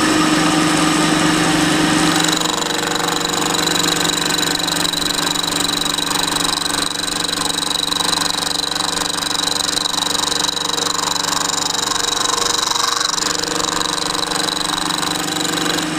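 Milling machine spindle running at a steady speed with an end mill cutting across a cast vise part lubricated with cutting oil. A steady hum and high whine, with the cutting noise growing thicker about two seconds in.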